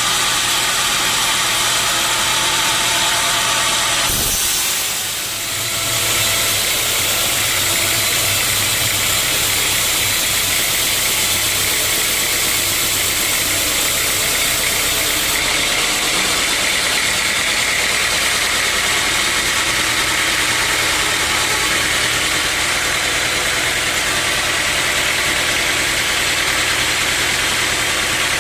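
Sawmill saw and its machinery running steadily while teak logs are being sawn, with a brief dip in level about four seconds in.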